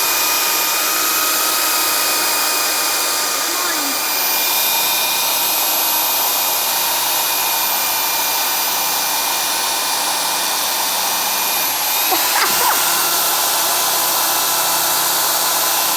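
Power drill running at a steady high whine, drilling out the rivets that hold an aluminium caravan panel. Its pitch shifts briefly about twelve seconds in.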